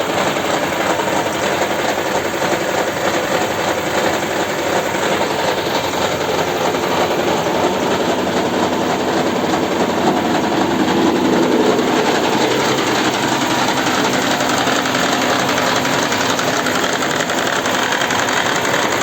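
Toyota Camry 50 hybrid's 2.5-litre four-cylinder petrol engine running with a steady, rapid rattling and knocking, which the mechanic thinks comes from the damper rather than a misfire.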